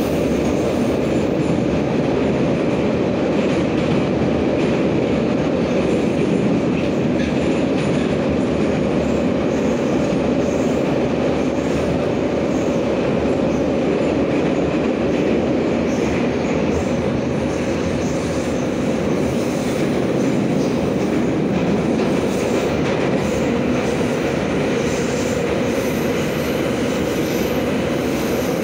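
Em-501 metro car heard from inside the passenger saloon while running: a steady, loud noise of steel wheels on the rails that keeps up evenly throughout.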